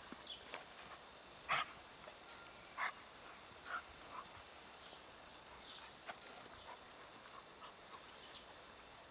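A young dog on a leash giving a few short, sharp barks, the loudest about one and a half seconds in.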